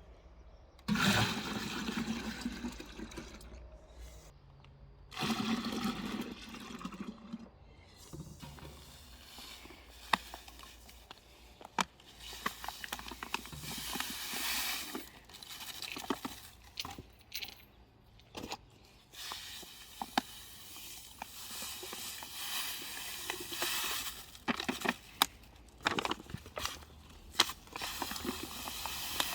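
Water pouring and splashing in several bursts lasting a few seconds each, with scattered sharp knocks and clinks in between.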